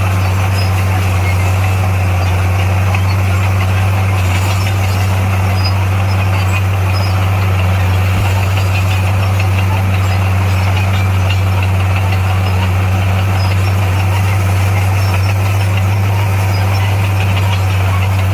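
Heavy diesel engine of earthmoving equipment running steadily at an even speed, a deep unbroken drone with no revving.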